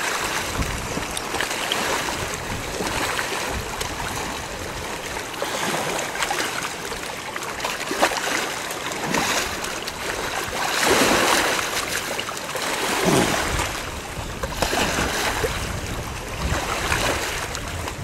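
Shallow river water rushing and lapping, with light splashing from hands and wading legs in the current. It swells louder a few times.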